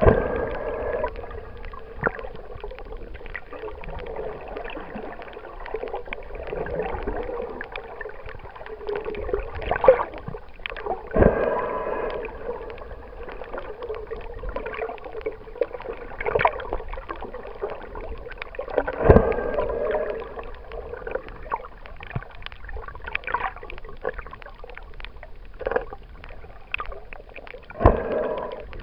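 Muffled underwater water noise on a submerged camera's microphone: a steady murky hum with gurgling, broken by several sharp knocks.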